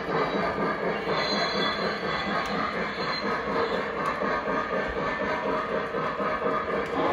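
Lionel O-gauge model passenger cars rolling by on three-rail track: a steady metallic rumble and rattle of small steel wheels on the rails.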